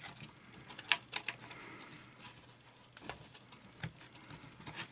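Light clicks and scrapes from a portable transistor radio's top panel being fitted down onto its case, its fibre strips sliding into their slots. The sharpest clicks come about a second in.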